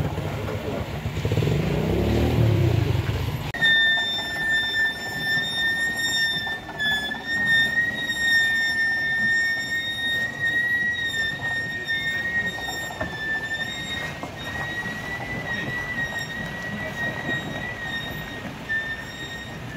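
Low vehicle engine rumble that stops abruptly about three and a half seconds in. A steady high-pitched whine then takes over, wavering slightly in pitch.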